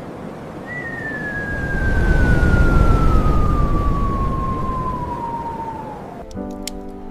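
Storm wind gusting, swelling and then easing, with one thin whistling tone that slides slowly down in pitch for about five seconds. The wind cuts off abruptly about six seconds in and gentle music with held notes begins.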